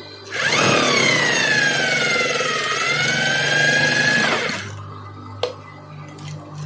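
Industrial sewing machine stitching fabric in one burst of about four seconds. Its motor whine climbs quickly as it starts, sags a little, then stops abruptly. A single sharp click follows about a second later.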